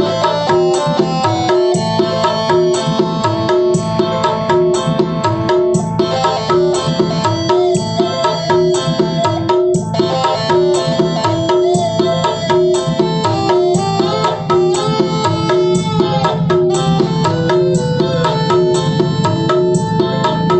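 Music with a steady drum beat, played back loud through a custom-built two-way speaker with an 8-inch woofer and a horn tweeter.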